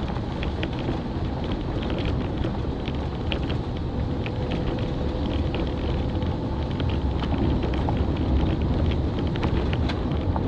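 Car driving on a gravel road: a steady low rumble of tyres and engine with many small crunches and pebble clicks from the gravel under the tyres, getting a little louder as the car speeds up.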